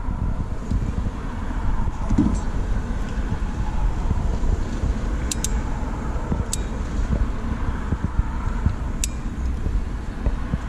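Steady low rumble with a few small, sharp clicks of wire crimp connectors and a crimping tool being handled.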